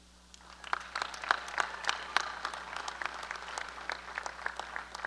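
Crowd applauding, with many hands clapping. It starts about half a second in and thins out toward the end.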